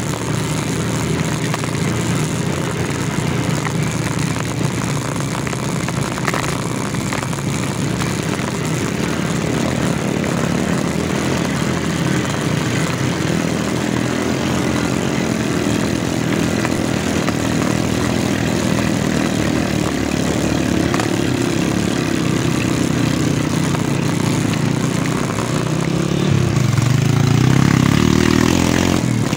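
Small motorcycle engine running while riding a rough dirt trail, heard from the bike's own saddle. The note climbs and gets louder near the end as the engine revs up.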